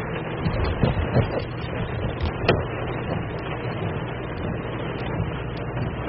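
Steady low rumble of a car driving slowly, heard from inside, with a few short knocks, the loudest about a second in and about two and a half seconds in.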